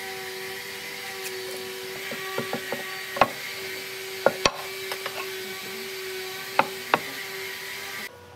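Wooden boards and an aluminium speed square being handled and set down on a wooden plank: a handful of sharp knocks and lighter clicks over a steady background hum, which drops away abruptly near the end.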